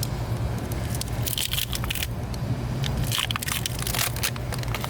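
Tire plug kit parts being handled, making short scratchy, crinkling noises in several bunches over a steady low hum.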